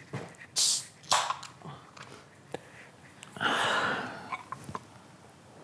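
Beer can opened by its pull tab: a sharp hiss of escaping gas lasting under a second, about three and a half seconds in. Two brief noises come about half a second and a second in.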